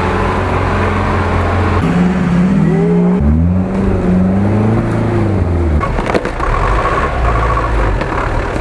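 Off-road 4x4 truck engines revving and labouring through forest mud, the pitch rising and falling and changing abruptly every second or two.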